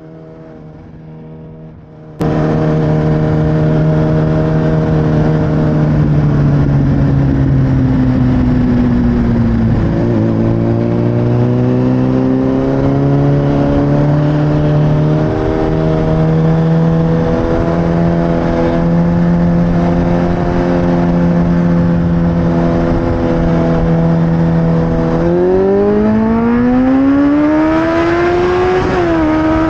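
Motorcycle engine heard onboard with wind noise, suddenly much louder about two seconds in, then running at steady cruising revs. The revs dip around ten seconds in, and near the end they rise hard under acceleration with a quick gear change.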